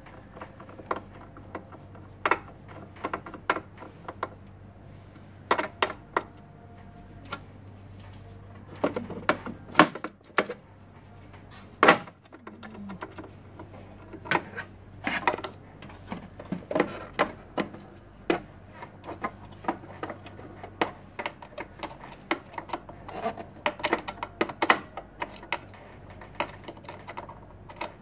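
Irregular clicks, taps and clacks of hard plastic and metal parts of a Kyocera copier being handled and worked on by hand. A low steady hum runs under them and stops about ten seconds in.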